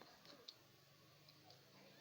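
Very quiet: a few faint, sharp clicks of popcorn kernels popping, spaced unevenly, over a low steady hum.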